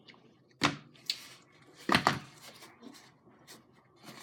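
Two sharp knocks about a second and a half apart, with a few fainter clicks in between, from things being handled at the table during a meal.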